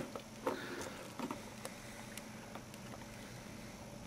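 Faint, scattered light clicks and taps of a small T6 Torx screwdriver and fingers handling a mobile phone as the driver is set into a tiny screw, over a low steady hum.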